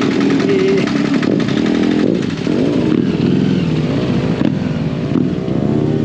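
Motorcycle engines running close by, their pitch rising and falling as they are revved.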